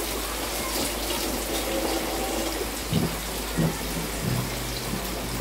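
Sole fish frying in hot coconut oil in a pan: a steady sizzling hiss with small crackles.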